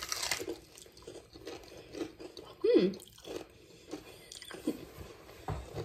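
Close-up crunching and chewing of raw red bell pepper topped with crushed Takis rolled corn chips, in many small crisp crackles. A short hummed vocal sound breaks in about three seconds in.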